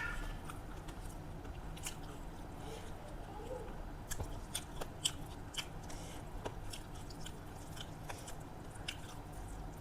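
Person chewing and biting food close to the microphone, with irregular small wet clicks and smacks of the mouth.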